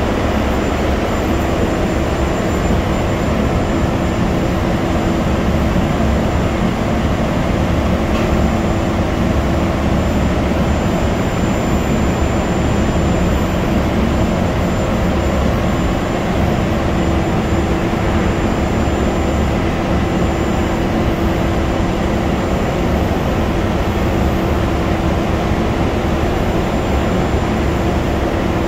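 Steady, loud industrial machinery noise on the floor of a steel coil coating line: a constant low rumble with a steady hum-like tone and a faint high whine.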